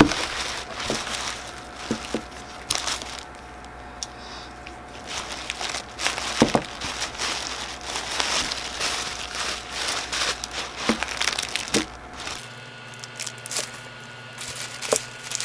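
Tissue paper crinkling and rustling as hands dig through it, with scattered light clicks and knocks from plastic slime jars being moved and lifted out.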